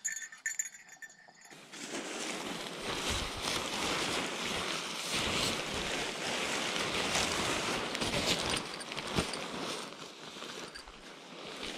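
Nylon tent fabric rustling and crinkling close to the microphone as the tent is handled and spread out, starting a second or so in and easing off near the end.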